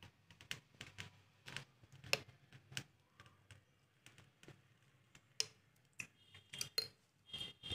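Metal spoon stirring thick chutney in a small steel bowl: faint, irregular clicks and scrapes of the spoon against the bowl, a few a second, with a brief faint metallic ring near the end.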